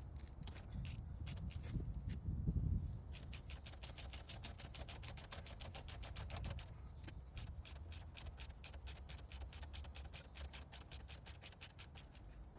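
Ratchet wrench clicking rapidly and evenly, about six clicks a second, with a short break about halfway, after a few scattered knocks of the tools at the start.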